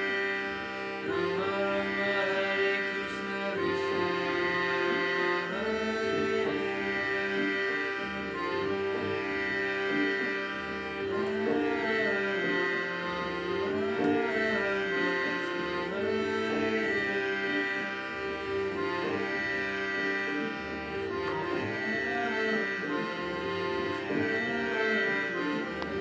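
Harmonium playing a devotional bhajan melody over a steady held drone, with tabla accompaniment.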